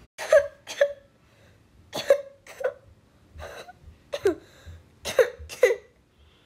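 Child coughing in a run of about eight short coughs, mostly in pairs, put on to act out a sick dog.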